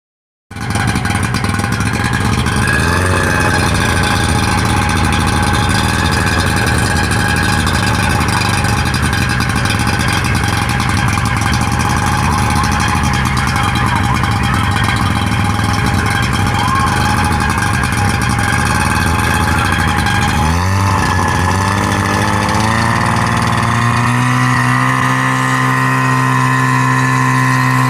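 Engine of a small fire-brigade firefighting unit being test-run, starting about half a second in and running steadily. Around two-thirds of the way through, the revs dip briefly, then rise and settle at a higher, steady speed.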